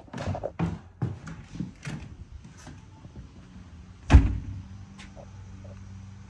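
A house door pulled shut with a loud thud about four seconds in, after a run of light taps and knocks as the door is opened and passed through.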